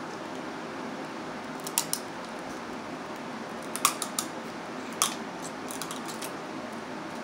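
Steamed blue crab shells cracked and snapped by hand as the meat is picked out: a couple of sharp crisp snaps about two seconds in, then a cluster of them from about four to six seconds. Under them runs the steady whir of an electric fan.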